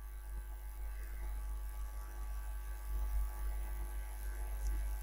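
Steady low electrical mains hum in the recording, with a faint hiss and no speech.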